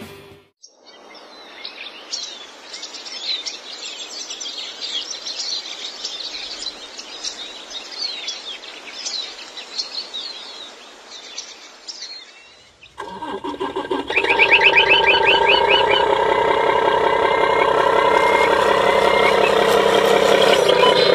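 Birds chirping over a steady hiss. About thirteen seconds in, this switches abruptly to a much louder, dense sound of several steady tones with quick chirping sounds on top.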